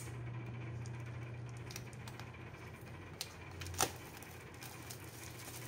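A few faint clicks and taps of fingers handling and picking at a small sealed smartphone box, the clearest about two-thirds of the way through, over a steady low hum.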